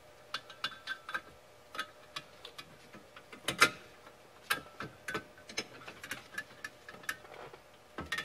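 Irregular small clicks and ticks from hands working the seat's lumbar support spring, cable and plastic frame, with one louder knock about three and a half seconds in.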